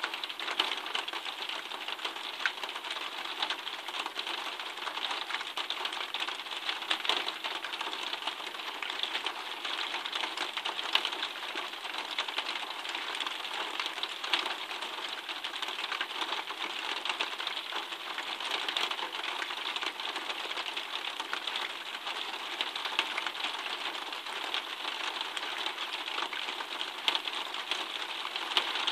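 Steady rain falling: a dense, even ticking of drops over a continuous hiss.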